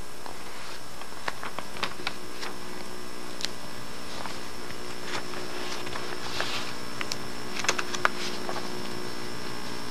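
Steady hiss and hum of an old VHS tape transfer, with scattered irregular clicks and ticks, the sharpest about eight seconds in.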